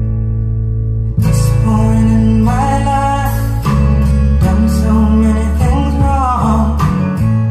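A song with acoustic guitar and singing, played loudly through a pair of RadioShack Optimus STS-1230 floor speakers that have their stock drivers and upgraded crossovers. The singing comes in about two seconds in.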